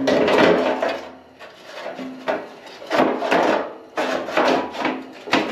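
Rusty cut-out floor pan from a 1972 Chevy Nova being slid and scraped back and forth over a new steel replacement floor pan, sheet metal rubbing on sheet metal in about five strokes.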